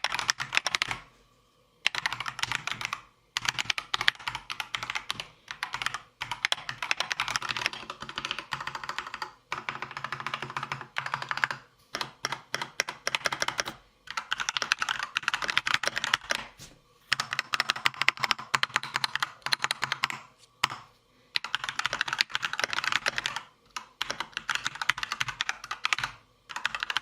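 Rapid typing on an Akko 3098B mechanical keyboard fitted with stock, unlubed linear switches. The clacks come in bursts of a couple of seconds each, with short pauses between them.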